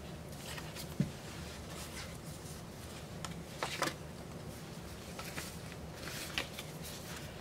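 Short rustles and scrapes of hands in plastic gloves handling the plastic scraper and plastic sheeting, with a single soft knock about a second in and small clusters of rustling near the middle and near the end.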